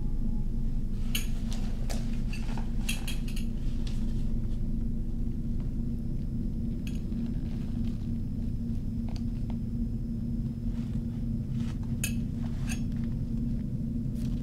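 Scattered light metallic clinks and knocks from a wind-up cymbal monkey toy being handled, its small brass cymbals tapping, over a steady low drone.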